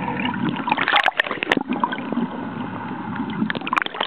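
Water sloshing and gurgling around a camera held just under the surface, heard muffled through the water, with irregular sharp clicks and pops that come thickest about a second in and again near the end.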